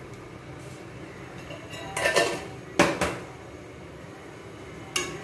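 Kitchen utensil knocking against a stainless steel cooking pot: a short clatter about two seconds in, then a sharp knock that rings briefly, and a lighter click near the end.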